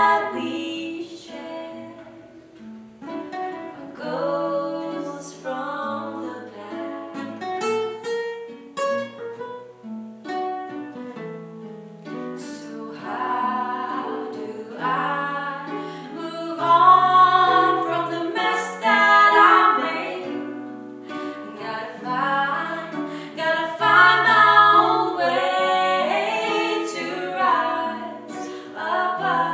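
Two women singing together in harmony over two acoustic guitars playing fingerpicked and strummed chords.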